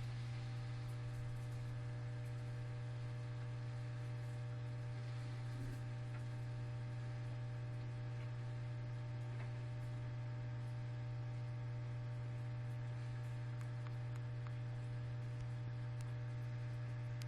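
Samsung WD136 front-load washer-dryer running with a steady low hum, with fainter higher tones above it.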